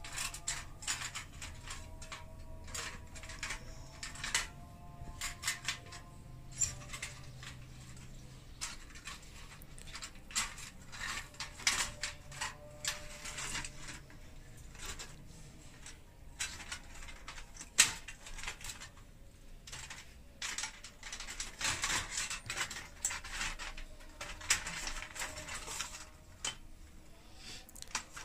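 Irregular metallic clicks, clinks and short rattles as an electric heater's heating rod and its fittings are handled and fitted into place inside the heater, with one sharper click about two-thirds of the way through.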